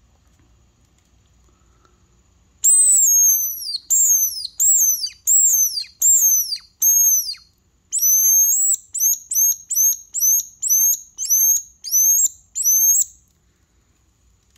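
A homemade tube bird-call whistle blown in a series of high, piercing notes that slide downward, imitating a bird's call. It starts with a long falling note, then about half a dozen falling notes at roughly two a second, then a held note followed by a run of shorter, quicker chirps.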